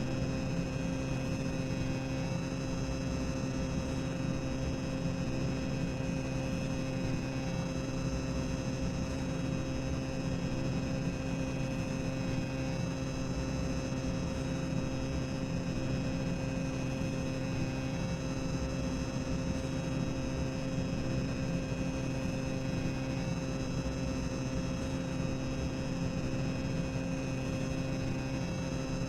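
Boiler-room ambience sound effect: a steady mechanical hum with a few held tones over a low rumble, running without change.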